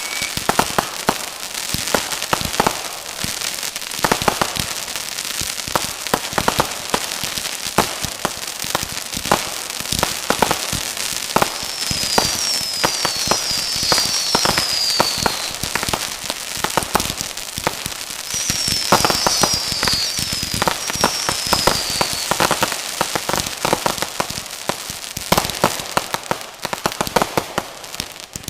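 Consumer fireworks going off in a steady barrage of crackling and sharp pops. Runs of short whistles, each falling in pitch, come in about twelve seconds in and again about eighteen seconds in.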